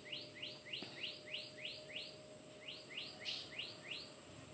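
A bird calling a rapid series of short, rising chirps, about three a second, with a brief break midway through, faint against a steady high-pitched hum.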